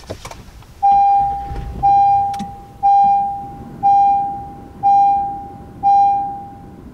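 Honda Ridgeline seat-belt reminder chime: six identical single-pitch chimes, about one a second, each struck and fading, warning that the driver's seat belt is not fastened.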